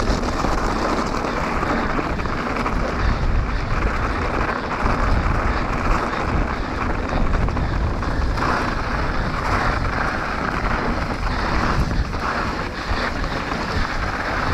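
Enduro mountain bike riding down a trail, with wind rushing over the microphone. The tyres and bike make a steady rolling rattle, with small knocks throughout.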